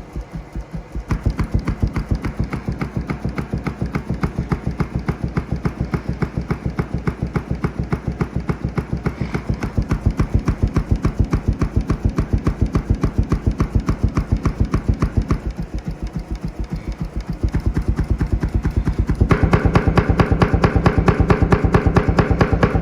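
Subwoofer outside its box, driven by a very low test tone from a tone-generator app, its cone making a fast, even pulsing of several thumps a second. It gets louder about a second in, drops back in the second half, then is at its loudest near the end as the cone is pushed toward maximum excursion.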